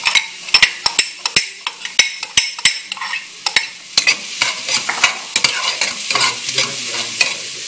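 Garlic and onions sizzling as they sauté in a pan, stirred with a utensil that knocks and scrapes against the pan in many quick, irregular clicks.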